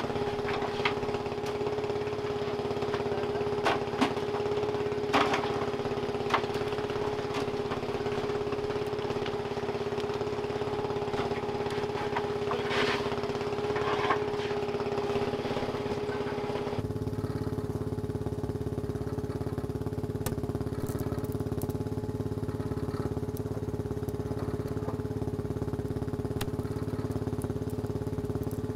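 Small fishing boat's engine running steadily, with scattered sharp knocks and clatter as crab pots are handled on deck. About two-thirds of the way through, the hum changes abruptly to a lower, smoother drone with no knocks.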